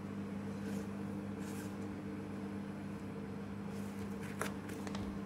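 A steady low electrical hum, with soft rustles and a few light clicks of Pokémon trading cards being flipped through in the hands; the sharpest click comes about four seconds in.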